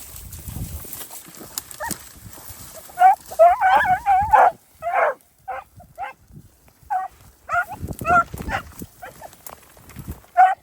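Beagles baying, a run of short high bawls and yips in clusters starting about three seconds in: the hounds giving tongue on a freshly jumped rabbit.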